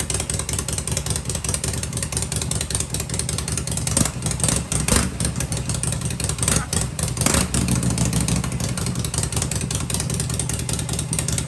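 Harley-Davidson Shovelhead V-twin engine running out of the frame, set up on dual-fire ignition, with a steady rapid firing pulse. Several quick throttle blips come between about four and seven and a half seconds in.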